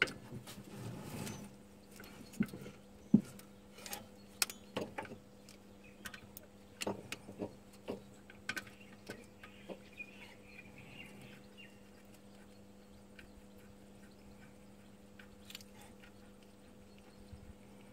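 Scattered light metallic clicks and taps of gloved hands and tools on the fittings as the oil pressure feed line and its sealing washers are fitted to the alternator's vacuum pump, over a faint steady hum. The clicks come thickest in the first several seconds, the loudest about three seconds in, and thin out after about twelve seconds.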